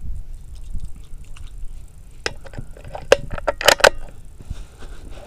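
Metallic clicks and rattles of .22 LR cartridges being loaded into the magazine of a Keystone 722 PT bolt-action rifle, with a quick cluster of sharper clicks between about three and four seconds in. Low wind rumble on the microphone underneath.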